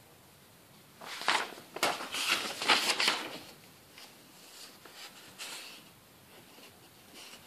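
Paper rustling and crackling as a drawing sheet is handled and turned, loudest for about two seconds starting a second in, followed by a few fainter rustles.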